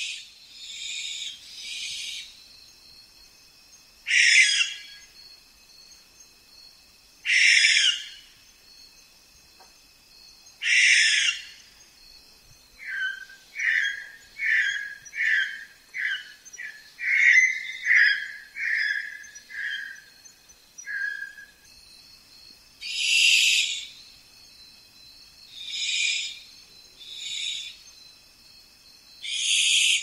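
Sulawesi masked owl calling: loud, hoarse screeches about a second long, a few seconds apart. In the middle comes a run of about a dozen shorter, lower notes in quick succession. A steady high insect trill runs underneath.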